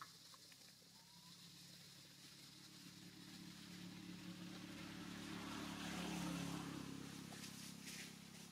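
Faint engine of a passing motor vehicle: it grows louder to a peak about six seconds in, then fades away.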